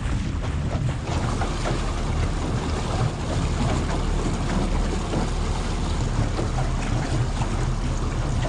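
Small outboard motor running steadily as the boat trolls, with water washing along the hull and wind buffeting the microphone.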